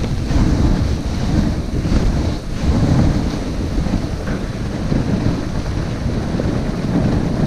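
Wind buffeting the microphone of a camera on a moving dog sled, a loud, uneven rumble, mixed with the runners sliding over packed snow.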